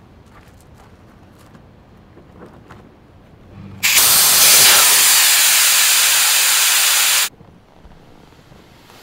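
Air rushing out of an inflatable stand-up paddle board's opened valve as the board is deflated. A loud hiss starts suddenly about four seconds in, holds steady for about three and a half seconds and cuts off sharply.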